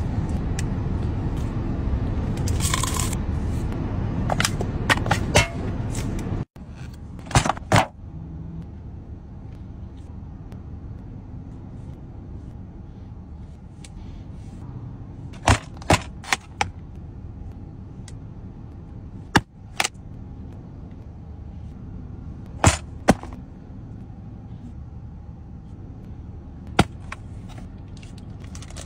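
Eating sounds of crispy fried food: the breading cracks as fried chicken is torn apart, then sharp short crunches come every few seconds, over a steady low hum that drops in level after about six seconds.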